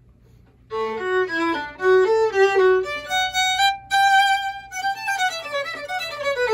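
Violin played with the bow: a run of separate notes starts about a second in, then a longer held note around the middle, then the line moves on through further notes.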